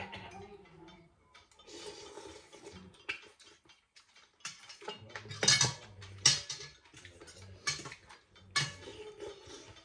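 Eating utensils clinking against bowls during a meal, with a few sharp clinks, the loudest about five and a half and six seconds in, and softer handling noise between them.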